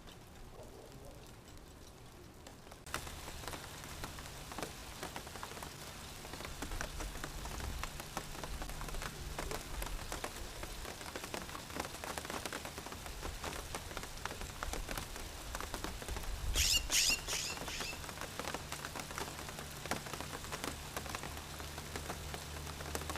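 Rain pattering on a surface, starting suddenly about three seconds in and then steady, with many small drop ticks. About two-thirds of the way through, a brief high warbling sound rises above the rain as the loudest moment.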